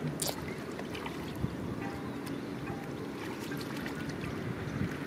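Hands groping and sloshing through shallow muddy water to catch fish by hand, with short splashes now and then; the sharpest comes about a quarter second in.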